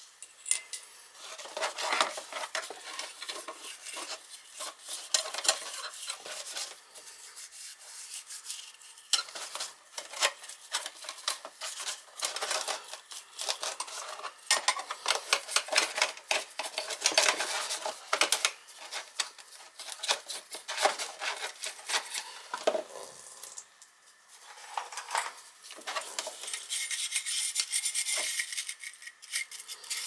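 Oily metal parts of a Beckett oil burner being scrubbed and scraped in a pan of carburetor cleaner, in quick irregular strokes with the parts clinking against each other, to clear off carbon.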